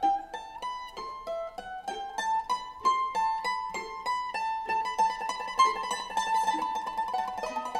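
Background music: a plucked-string instrument playing a quick, lilting melody of short, clearly struck notes.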